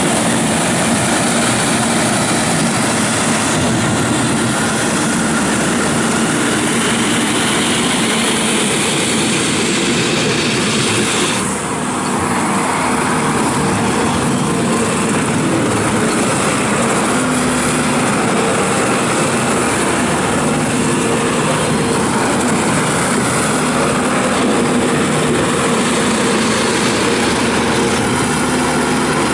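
JCB 260T Eco compact track loader's diesel engine running steadily as the machine is operated, with a brief drop in level about a third of the way in.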